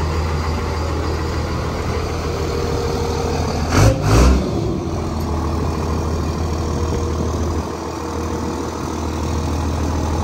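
Lifted second-generation Dodge Ram pickup's engine idling with a steady low rumble, with two short louder bursts about four seconds in.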